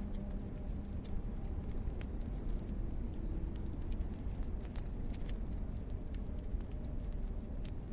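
Wood fire crackling, with many small irregular pops and snaps over a low steady rumble.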